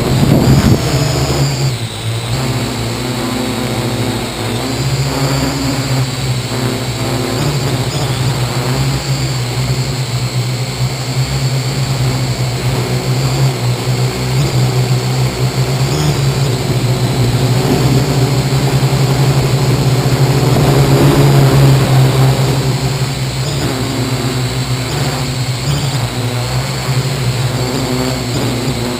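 Parrot AR.Drone 2.0 quadcopter's four electric motors and propellers whirring in flight, heard from a camera mounted on the drone itself: a steady low hum under high motor whines that rise and fall as the drone manoeuvres, swelling louder for a few seconds about two-thirds of the way through.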